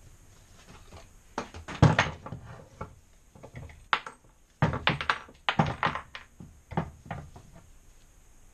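Short, sharp metal knocks and clatter from parts of a cut-open compressor being handled and worked on at a workbench. They come in several quick clusters, the loudest about two seconds in and again around five to six seconds.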